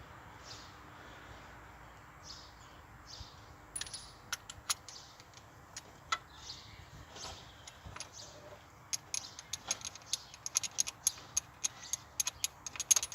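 Light metallic clicks and clinks of hand tools and small engine parts being handled, scattered at first and becoming a quick, busy run of clicks in the second half.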